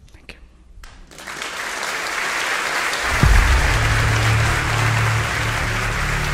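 Audience applause, building up from about a second in. About three seconds in, music with a deep bass comes in over the clapping.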